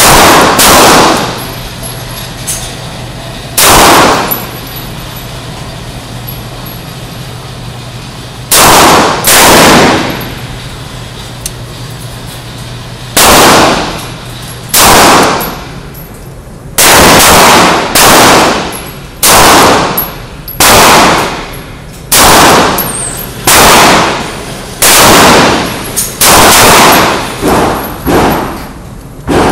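Handgun shots at an indoor range, about twenty single shots, each with a short echoing ring. They come several seconds apart at first, then settle to roughly one a second. A low steady hum runs underneath in the first half.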